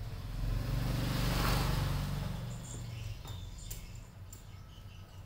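A low rumbling hum swells and fades over the first three seconds. A few light taps and clicks follow as two cats scuffle on a tile floor.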